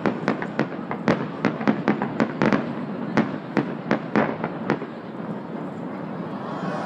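Aerial firework shells bursting in a rapid, irregular string of sharp bangs, about four a second. The bangs thin out about five seconds in, leaving a steadier crackling noise.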